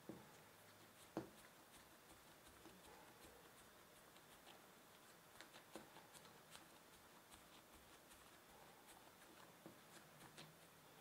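Faint soft taps and rubbing of hands rolling and pressing bagel dough into a rope on a floured silicone baking mat, with a couple of sharper taps in the first second or so.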